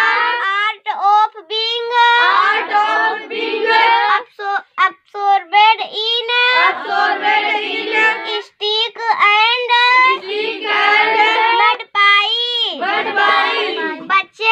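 A young girl's voice chanting lines of an English poem aloud in a sing-song recitation, in phrases of a second or two with short pauses between them.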